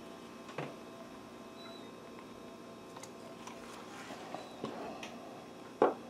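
Small plastic miniature toys and a hot glue gun handled on a wooden tabletop: faint clicks and taps, then one sharper knock near the end.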